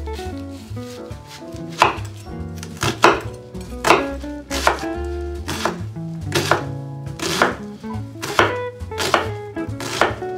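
Chef's knife chopping an onion on a wooden cutting board, with a sharp strike about once a second, sometimes two in quick succession. Soft background music plays underneath.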